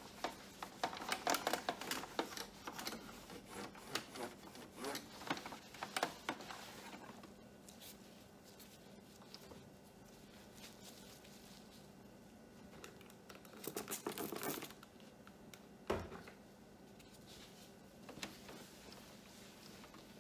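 A cloth wiping and rubbing over a printer's flatbed scanner glass, in quick rubbing strokes for the first several seconds, then quieter. There is a short burst of rubbing about two-thirds of the way through, and a single knock soon after.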